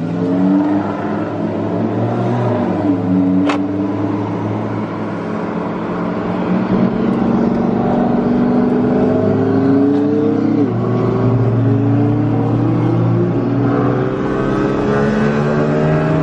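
Car engine accelerating under load, heard from inside a car: its pitch climbs steadily, drops sharply at upshifts about three and ten and a half seconds in, then climbs again.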